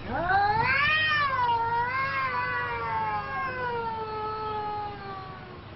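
Cat yowling at another cat in a standoff: one long, drawn-out threat call that climbs steeply over the first second, dips, then slowly falls in pitch and fades after about five seconds.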